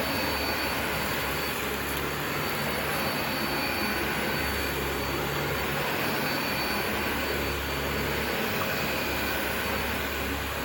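Vacuum cleaner running steadily, its motor giving a constant rushing noise with a low hum and a faint high whine, as it sucks Shake n' Vac carpet powder off a carpet.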